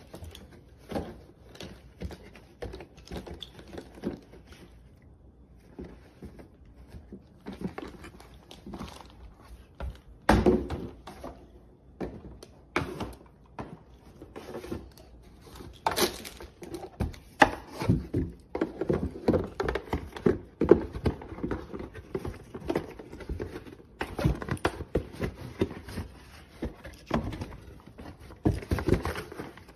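A dog nosing, mouthing and carrying a cardboard LEGO set box, giving irregular thunks and knocks of the box against teeth and carpet. The knocks come thicker and louder in the second half.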